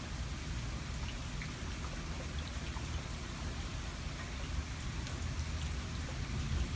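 Steady rain from a thunderstorm, with scattered faint drop ticks over a continuous low rumble.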